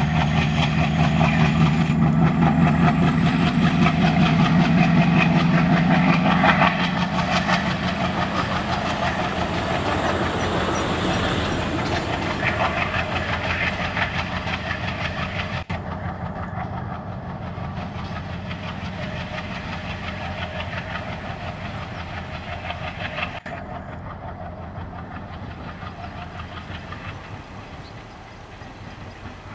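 Diesel locomotive passing close with its engine running, loudest for the first six seconds or so, followed by the coaches it hauls rolling by with steady clickety-clack over the rail joints, fading slowly.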